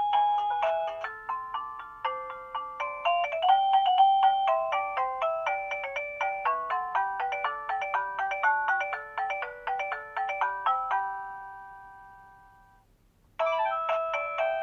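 Guudgo GD-MD01 wireless doorbell receiver playing one of its electronic chime melodies, a quick tune of clear synthesized notes. It ends about eleven seconds in on a held chord that fades away, and after a short gap a different tune starts near the end.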